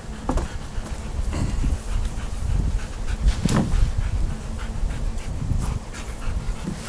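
A dog panting, with scattered short clicks and knocks.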